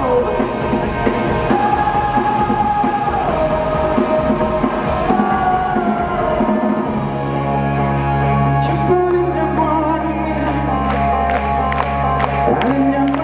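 A rock band playing live with a sung melody. About seven seconds in, a deep sustained bass note comes in underneath, and sharp cymbal ticks keep time.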